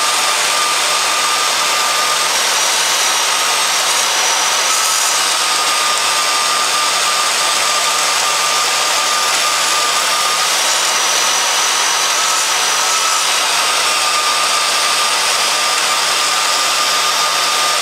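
Milwaukee portable bandsaw (portaband) running steadily, its blade cutting short straight relief cuts into a steel knife blank along the line of a curve. A thin steady whine sits above the even noise of the motor and blade.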